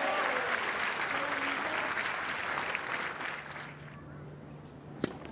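Tennis crowd applauding and cheering after a point, dying away about three and a half seconds in. Near the end comes a single sharp bounce of a tennis ball on the court as the server readies to serve.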